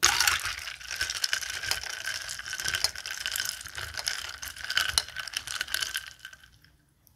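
Bar spoon stirring ice in a glass of vodka tonic: a fast, busy run of clinks and rattling ice against the glass, with the glass ringing. It starts suddenly and dies away about six seconds in as the spoon is lifted out.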